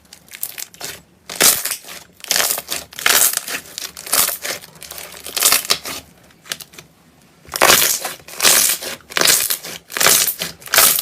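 Slime being squeezed and pressed by hand, giving repeated crackly, crunchy squishes with a short pause a little after six seconds.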